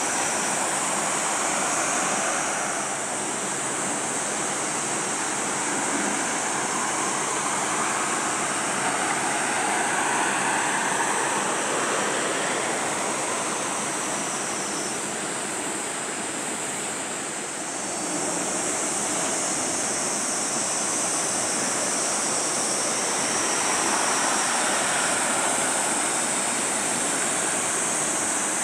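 Steady rushing noise of sea waves, swelling and easing slowly every few seconds, with a steady high hiss on top.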